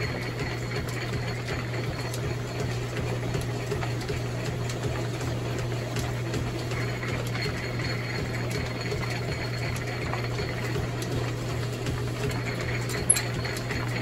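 Old drill press running steadily as a countersink bit cuts slowly into a metal rail, with a single sharp click near the end.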